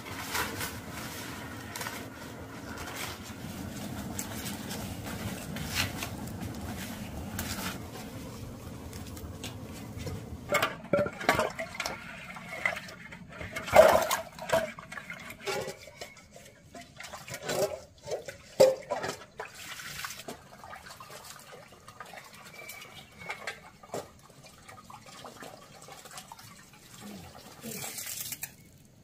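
Water sloshing and splashing as hands wash something in a metal pot, with sharp knocks and clatters against the pot. It comes over a steady rushing noise in the first third, and fades to fainter scattered sounds near the end.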